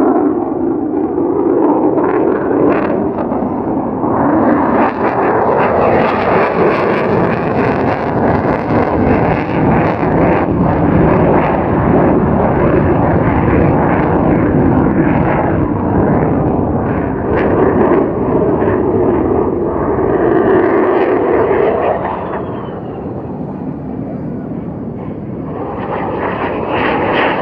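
Lockheed Martin F-35A fighter jet's engine roaring overhead with a crackling rumble. It eases somewhat about two-thirds of the way through, then swells again near the end.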